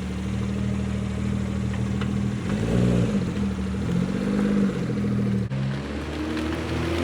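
BMW 440i's turbocharged inline-six idling through an AWE catback exhaust (axle-back plus mid-pipe), with two short rises and falls in pitch from light throttle blips, about two and a half seconds in and again about four seconds in.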